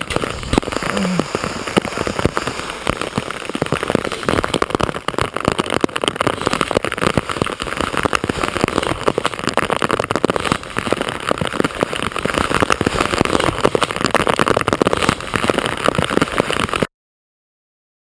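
Rain pattering close on the camera, a dense steady crackle of drops that cuts off suddenly near the end.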